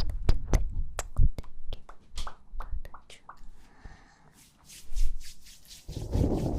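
Close-microphone ASMR kiss sounds: a string of quick, soft lip smacks and mouth clicks, then breathing onto the microphone in a rushing, breathy stream near the end.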